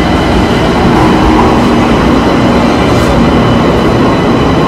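Pittsburgh light-rail car pulling into the station and passing close alongside the platform: a steady loud rumble of wheels on rails and running gear, with a faint steady whine over it.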